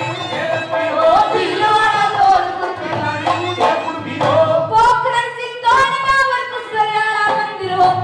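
Live Haryanvi ragni folk music: a melodic line with sliding, ornamented notes, over a few drum strokes.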